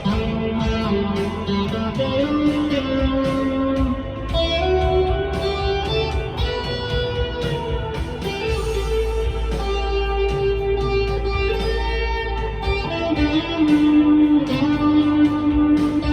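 Electric guitar, a Squier Classic Vibe Telecaster through a Blackstar V2 amp's modulation effect, playing a melodic line in A minor with held and sliding notes. Low bass notes sit underneath, changing about every four seconds.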